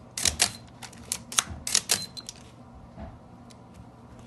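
Series of sharp mechanical clicks from a 35 mm film SLR camera being operated by hand: about seven crisp clicks in the first two and a half seconds, then a few fainter ticks.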